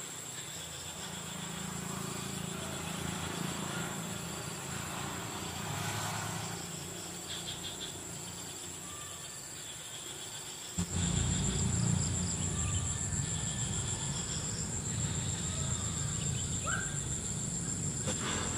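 Insects chirring steadily at a high pitch over a low rumble, which grows suddenly louder about eleven seconds in.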